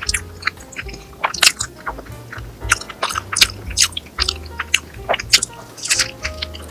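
A person chewing and biting food close to the microphone: irregular crisp, crunchy clicks a few times a second, over soft background music with a steady bass.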